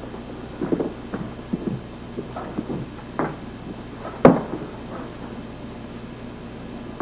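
A dart thudding into a dartboard: one sharp thud about four seconds in, after a few softer knocks and shuffles in the room.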